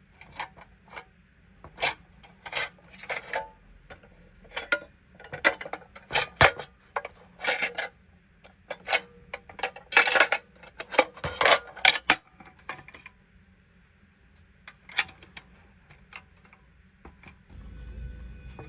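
Metal parts of a small gasoline stove being handled: a run of irregular clinks, taps and short scrapes, busiest in the middle and thinning out later. A low hum comes in near the end.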